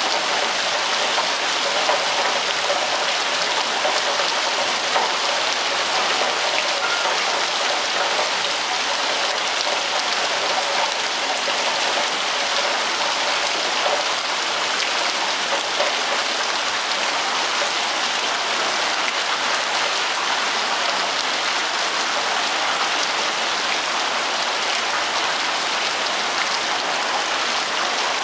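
Rain falling steadily: an even, unbroken hiss of drops on surfaces.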